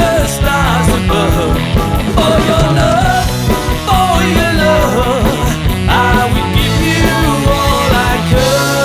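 Sixties-style rock band playing a cover song: a lead vocal over a steady drum beat and band backing, with a long held note coming in near the end.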